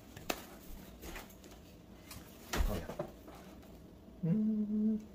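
Mostly quiet room with a few soft knocks and one low thump about two and a half seconds in, then a short steady hummed voice sound near the end.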